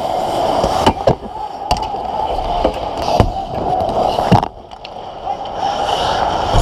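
Close-up on-ice ice hockey sounds at the goal: skate blades scraping the ice over a steady arena din, with several sharp clacks of sticks, puck and goalie pads. The loudest knock, a little past four seconds, comes as the goalie drops to the ice, and the din dips briefly after it.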